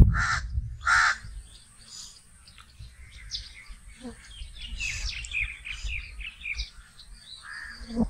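House crow cawing: two loud, harsh caws in the first second, a fainter caw about two seconds in, and a softer one near the end.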